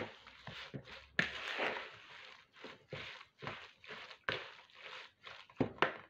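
Plastic spatula stirring and scraping a thick, moist batter of grated pumpkin, coconut and cornmeal in a plastic mixing bowl, in repeated strokes about two a second.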